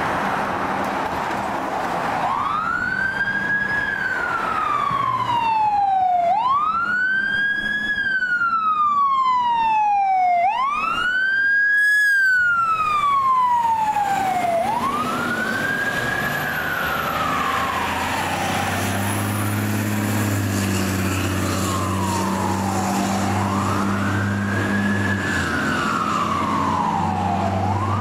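Fire engine's Federal Q2B mechanical siren wailing over and over, about every four seconds. Each cycle spins up quickly and then coasts down more slowly, and the pitch shifts as the truck passes about halfway through. The low rumble of the apparatus's diesel engine sits underneath in the second half.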